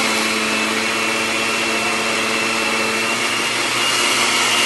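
Countertop blender running steadily as it blends pancake batter of bananas, oats and applesauce: a constant motor hum with a faint high whine over it.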